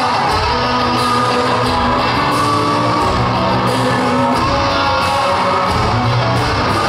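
Live country-rock band playing with electric guitars, heard from the audience floor of an arena.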